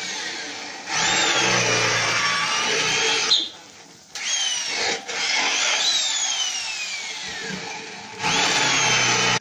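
Corded electric drill drilling into the side of a steel charcoal grill in four runs with short pauses. The motor whine rises at each start and sags in pitch as the bit bites. The holes are being drilled to give the coals more draft.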